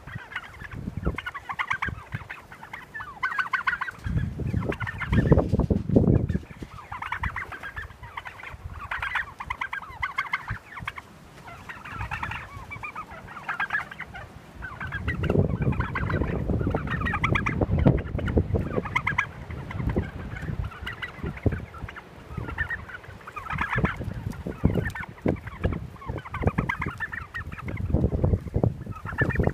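A large flock of heritage turkeys calling all around: a steady chatter of short, rattling clucks and gobbles from many birds. Low thuds and rustling close by come and go, loudest about five seconds in and again from about fifteen to twenty seconds in.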